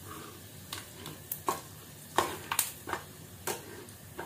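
Cumin and fenugreek seeds sizzling in hot oil in a kadhai on high heat, with a steel slotted ladle scraping and clicking irregularly against the pan as the spices are stirred and roasted.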